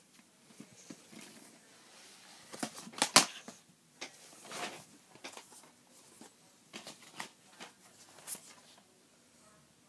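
Handling noise: rustling and a string of irregular clicks and knocks as things are moved about and the phone is handled, the loudest a sharp knock about three seconds in.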